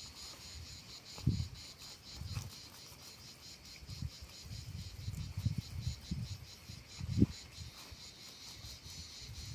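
Insects chirping steadily in a fast, even pulse, with scattered low bumps and rumbles; the loudest bump comes about seven seconds in.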